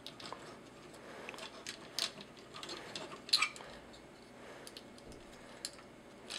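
Plastic parts of a TFC Toys Phobus transforming robot figure clicking as they are handled and folded into its bird mode: a handful of light, sharp clicks, the loudest about three seconds in.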